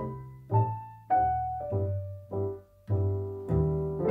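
Background music: piano playing single notes, roughly two a second, each fading away, over a low bass line.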